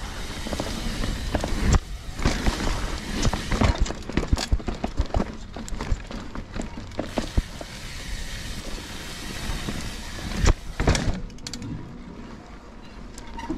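Mountain bike ridden along dirt singletrack: a steady rushing of tyre and wind noise, with the bike rattling and knocking over bumps and a few harder knocks about ten and a half seconds in.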